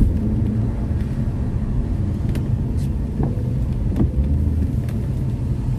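Steady low engine and road rumble inside the cabin of a BMW being driven on a wet road, with a few faint ticks.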